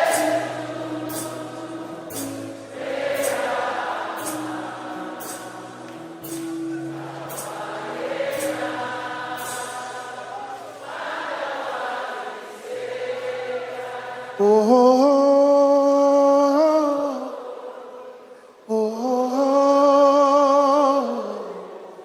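Live worship music: voices singing together over a sustained keyboard pad with a soft, evenly spaced ticking beat. About two-thirds of the way through the backing drops away and a single voice holds two long notes with a strong, wavering vibrato, separated by a short break.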